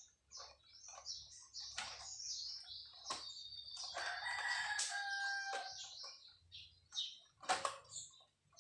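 A rooster crowing once in the background, a drawn-out crow about four seconds in, among high chirps. A few sharp clicks of wires or tools being handled.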